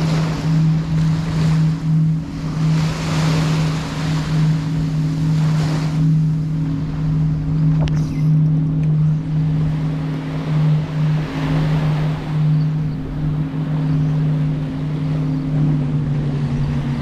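Small surf waves washing up on a sandy beach, swelling and fading every few seconds, over a steady low hum.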